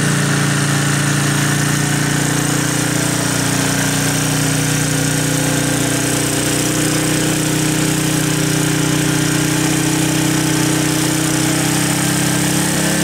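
Wolf ride-on garden tractor's engine running steadily as the tractor drives off across the lawn, towing a trailer.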